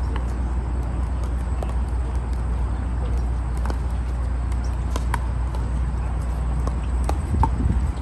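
Pickleball paddles hitting plastic balls: scattered sharp pops at an irregular pace, several overlapping from different courts, over a steady low rumble.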